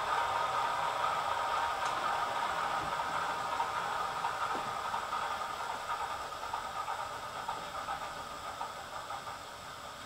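The Class 33 diesel engine sound of a model locomotive's ESU LokSound v4 decoder, played through its small 23 mm speaker with the loco standing still. It is a steady, hissy engine note that fades gradually toward the end.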